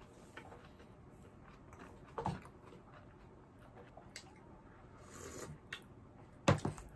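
A person eating close to the microphone: soft chewing and mouth clicks, then a short slurp of broth sipped from a bowl, and a sharp knock near the end, the loudest sound.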